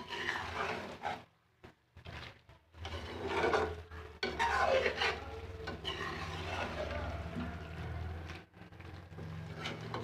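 A spatula stirring and scraping a thick curry around a metal karahi, in uneven rasping strokes with short pauses early on. A steady low hum sits underneath for most of the time.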